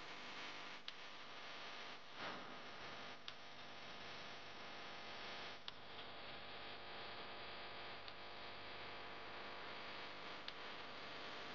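Faint steady hum and hiss with a few sharp clicks, about four, spread across several seconds.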